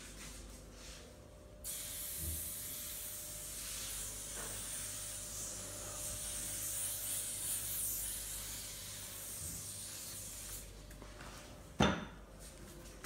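A steady spray-like hiss that starts abruptly and lasts about nine seconds. Near the end comes one sharp, loud smack.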